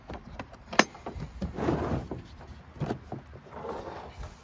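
Tools and their cases being handled and rummaged through: a sharp knock a little under a second in, scattered small clicks, and two stretches of rummaging noise.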